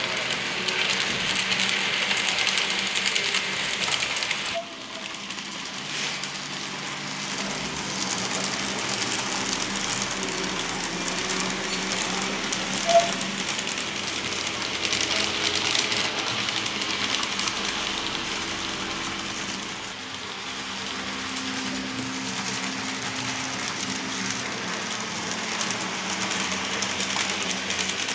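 Roco HOe model of an ÖBB 1099 electric locomotive running on model track: a steady whir of its small electric motor with wheel and rail noise. The sound drops abruptly about four and a half seconds in, and a single sharp click comes about halfway through.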